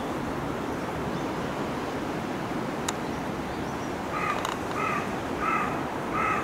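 A crow cawing four times in even succession, over a steady low rush of outdoor background noise.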